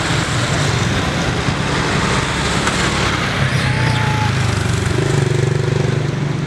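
A motor engine running steadily with a low hum, with a faint short whistle about four seconds in.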